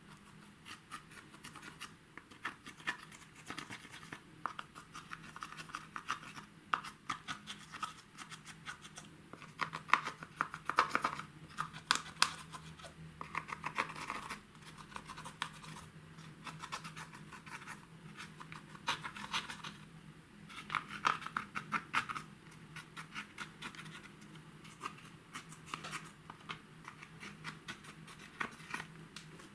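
White slime being worked and squished, making dense, irregular sticky crackles and small popping clicks that come in louder bunches.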